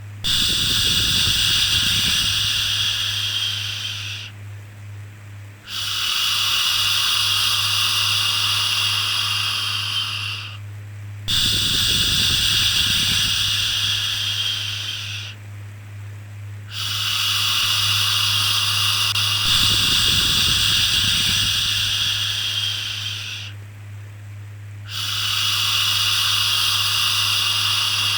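A long 'shhh' shushing sound for soothing a baby, repeated five times with a short pause between each, every five to six seconds. A steady low hum runs underneath.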